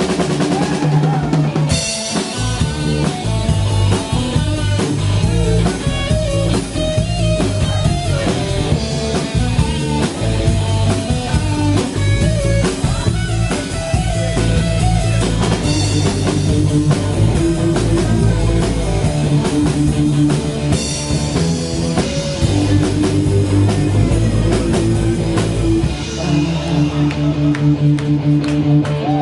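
Live rock band playing an instrumental break: drum kit keeping a steady beat under electric guitar, with no singing.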